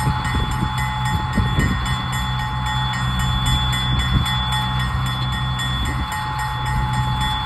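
Diesel switcher locomotive running slowly as it pulls passenger cars, with a steady engine drone and a steady high whine, and a few clanks from the train.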